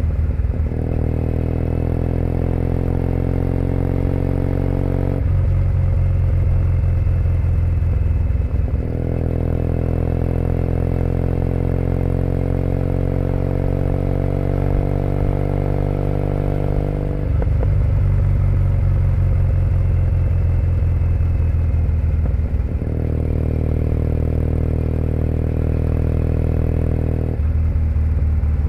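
2008 Triumph Bonneville T100 parallel-twin engine running through aftermarket British Customs Predator pipes under way. Its pitch climbs slowly twice as the bike pulls, and drops abruptly several times as the throttle eases or the gear changes.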